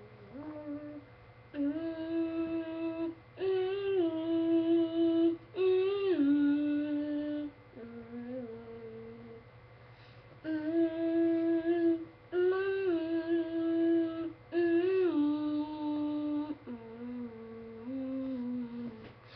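A person's voice humming a wordless tune in long held notes, sliding between pitches. The tune runs as two similar phrases, the second repeating the first after a short pause.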